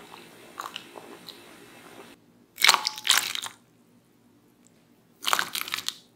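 Water boiling in a small pot, a faint crackle of popping bubbles around diced potatoes. Then two loud sloshing splashes in a glass bowl of cold water, a couple of seconds apart: the boiled potato cubes going in, then a glass scoop dipping into the water.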